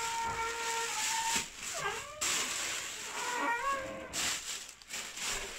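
A cat meowing, with a long held cry near the start and then two shorter rising-and-falling meows, over the rustle of a plastic bag.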